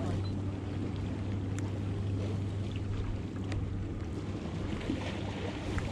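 Steady low hum under a rumbling wash of wind and water noise, with a couple of faint clicks.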